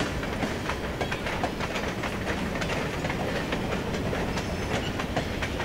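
Freight train of covered grain hopper cars rolling past, steel wheels clicking over the rail joints over a steady rumble.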